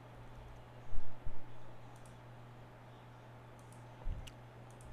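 A few scattered computer keyboard and mouse clicks, the loudest a tap with a low thump about a second in, over a steady low hum.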